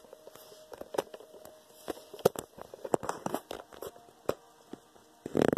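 Handling noise from a phone being moved around while filming: scattered light clicks and taps, with a louder rustling knock near the end.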